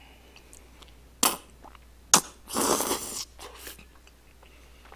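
Slurping and chewing of long, chewy tteokbokki rice cakes close to the microphone: a short slurp just past a second in, a sharp smack a little after two seconds, then a longer, louder slurp around the middle.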